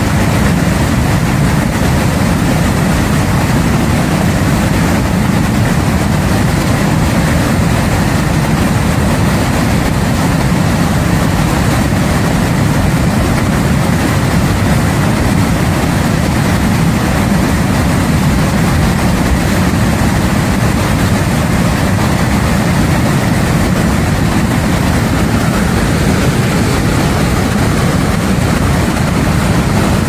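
A flash-flood torrent of muddy water and debris rushing down a mountain creek after a storm: a loud, steady, deep rumble that holds unchanged throughout.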